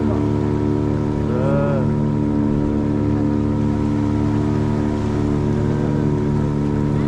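Motorboat engine running steadily at speed, with water rushing along the hull as the boat cuts through floodwater.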